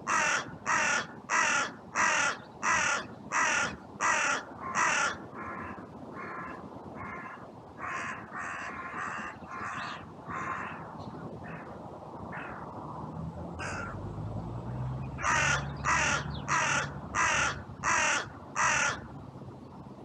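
Carrion crow cawing in two quick runs of harsh, evenly spaced caws: about eight in a row at the start and six more near the end, with fainter caws in between.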